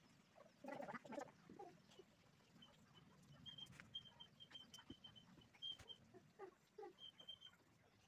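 Faint animal calls, with a run of short, high chirps on one pitch through the middle.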